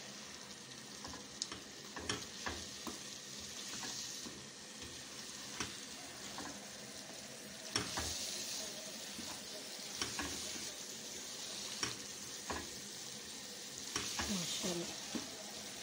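Grated carrots for gajar ka halwa sizzling in ghee in a non-stick wok as they are stirred and turned with a slotted spatula. The milk has cooked away, so the carrots are frying in the fat. A steady sizzle runs throughout, broken by short scrapes of the spatula against the pan every second or two.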